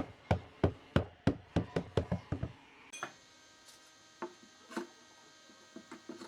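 A hand tool striking wood: a quick run of sharp knocks that speeds up, then stops about halfway through, followed by a few scattered single knocks.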